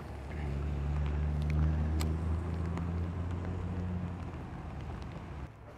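Low, steady motor hum that swells about half a second in and fades away near the end, over a faint hiss of light rain on the water.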